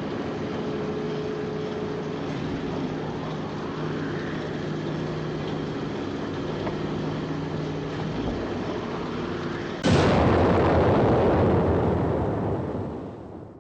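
A steady mechanical engine hum with several held tones, then, about ten seconds in, a sudden loud explosion: a long rumbling blast that fades away over the last few seconds.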